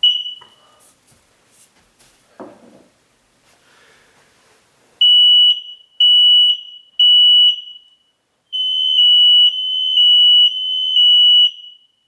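Kidde hardwired smoke alarm giving one short chirp as its test/reset button is pressed. A few seconds later it sounds its high-pitched alarm beeps: three beeps, a pause, then a longer run of beeps running together as the other interconnected alarms sound too. The sequence is the sign that the alarm has been reset after its power was restored. A light knock comes between the chirp and the beeps.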